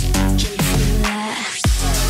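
Electronic background music with a heavy bass line and beat. The bass cuts out about a second in and comes back with a quick sweep near the end.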